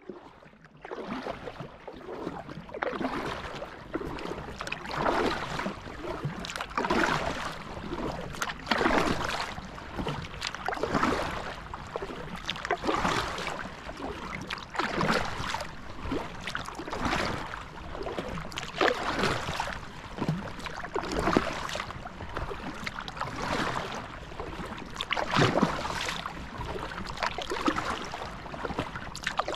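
Kayak paddle strokes through lake water in a steady rhythm, a splash about every two seconds, with water washing along the hull between strokes.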